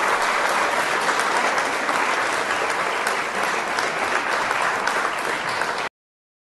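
Audience applauding, a steady clatter of many hands clapping that cuts off abruptly near the end.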